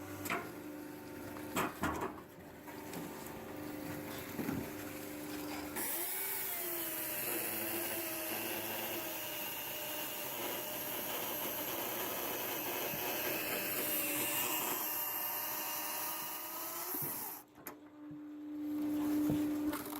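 Motor-driven saw of a homemade firewood cutting machine running steadily, with a few knocks. About six seconds in it cuts through a log for roughly eleven seconds, adding a hiss as the motor's pitch dips under the load. It then runs free again near the end.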